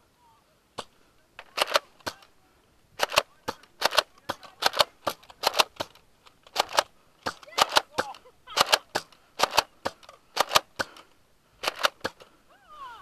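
Nerf foam-dart blaster being worked and fired again and again: sharp plastic clacks, often two in quick succession, coming in clusters every half second to a second.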